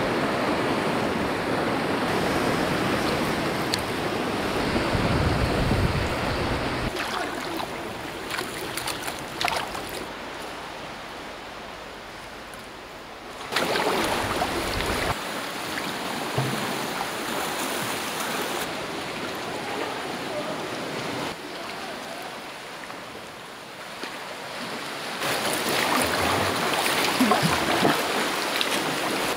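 Sea water lapping and sloshing around rocks, with the splash of kayak paddle strokes.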